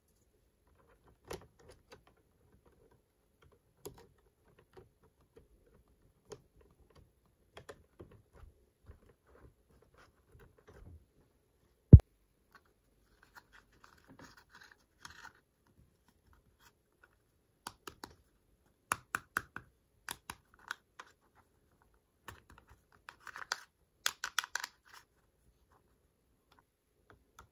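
Small plastic toy pieces being handled and set down: scattered light clicks and taps, one sharp thump about halfway through, and short bursts of scratchy rustling in the second half.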